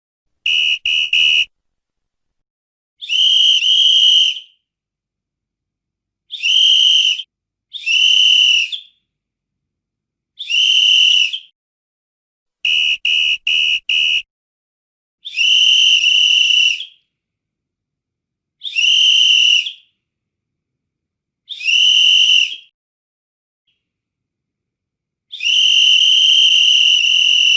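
A whistle blown in a series of shrill, steady blasts: three quick toots, then single blasts of about a second, another three quick toots midway, and a longer blast near the end.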